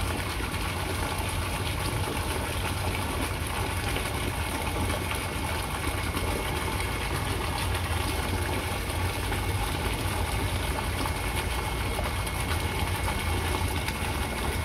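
A motor running steadily: a constant low hum under an even hiss.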